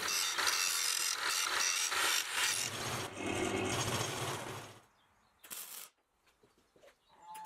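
Metalworking noise: about five seconds of harsh scraping hiss with irregular crackles, then it drops away, broken by one short burst of noise about five and a half seconds in.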